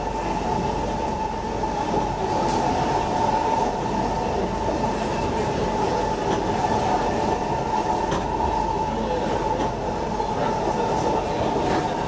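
Interior sound of a Siemens C651 metro train running at speed: a steady rumble of wheels on track under a constant high whine, with a few faint clicks.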